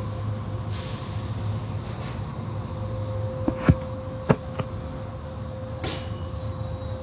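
Automatic car wash machinery running with a steady hum and a constant tone. A few sharp knocks come about halfway through, and short hissing bursts come near the start and near the end.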